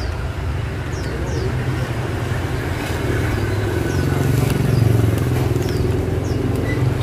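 Motorbike engine running close by over street traffic noise, swelling to its loudest about five seconds in. Short high chirps repeat now and then above it.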